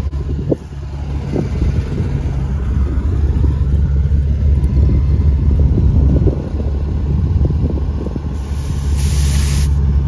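An engine running steadily with a low hum, while air is fed into a trailer tire through an air chuck on the valve stem; about eight and a half seconds in, a burst of air hissing lasts about a second and a half.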